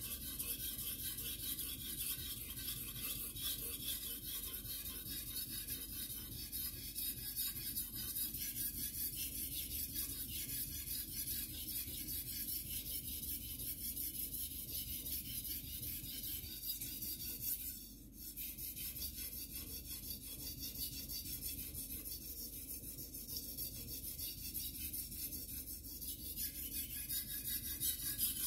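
Shirogami #2 carbon-steel gyuto blade being sharpened on a whetstone, stroked steadily back and forth in continuous scraping, with a short break about two-thirds of the way through.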